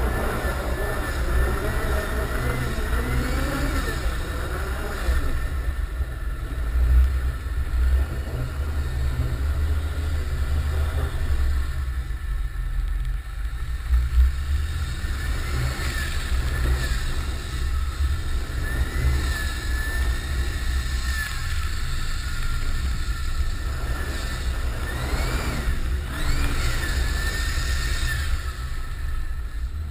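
Nissan Patrol Y60's 2.8-litre turbo-diesel engine running with a deep, steady rumble, its turbo whistling over it. The whistle rises and falls several times, near the start, around the middle and near the end, as the turbo spools up and down.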